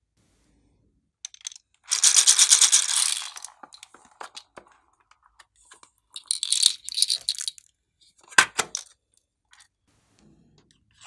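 Small plastic beads rattling and clattering in a clear plastic compartment box as they are tipped out, in three bursts: a long one about two seconds in, another around six seconds and a short sharp one near eight and a half seconds, with a few small clicks between.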